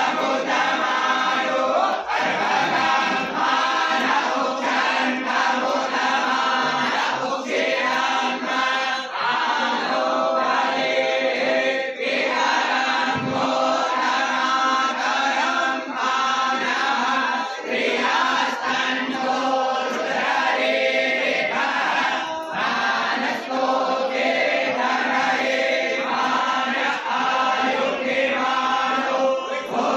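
Many voices chanting together in unison, a devotional chant led by a group, with a steady low tone held beneath.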